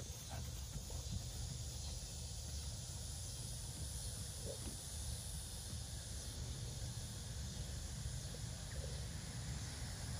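Steady outdoor background noise: a low rumble and a high hiss, typical of wind on the microphone, with a few faint, irregular thuds.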